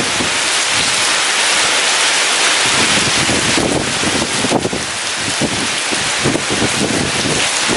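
Heavy rain pouring in a dense, steady hiss, with strong wind gusting irregularly underneath.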